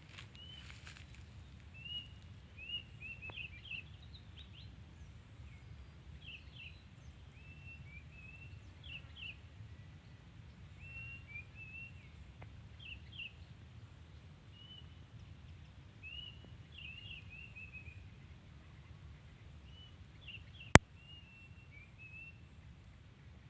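Small birds chirping with short, quick calls, often in pairs and little runs, over a steady low rumble of outdoor background noise. One sharp click stands out near the end.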